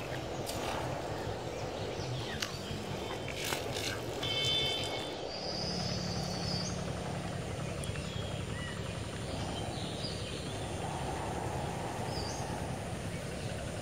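Steady low outdoor rumble with a few short, faint bird chirps.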